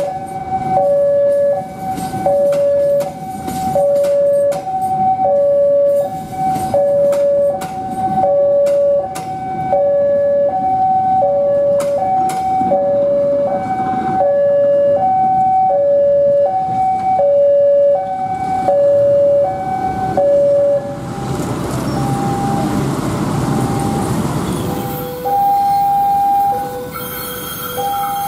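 Railway level-crossing warning alarm sounding an electronic two-tone ding-dong, high and low tones alternating about twice a second, over the rumble and rail-joint clacks of a passing Jayakarta Premium passenger train. About three-quarters of the way through the alarm stops and the train's rumble swells, then a slower two-tone alarm begins.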